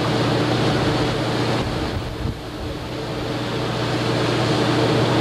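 Fishing boat's engine running with a steady drone, with wind and water noise over it; the level dips briefly about two seconds in.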